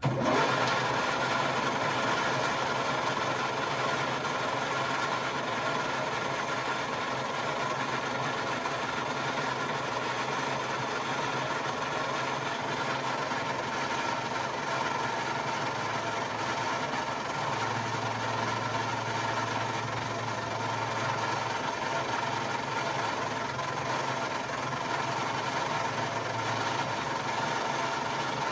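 Metal lathe running with a steady hum and whine while a carbide tool takes facing cuts on a spinning nylon bar. A low hum grows louder for a few seconds past the middle.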